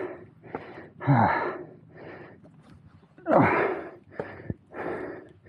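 A man breathing hard and gasping, out of breath from climbing trail steps. There are loud breaths about every half second to a second, and two of them, about a second in and just after three seconds, carry a falling groan in the voice.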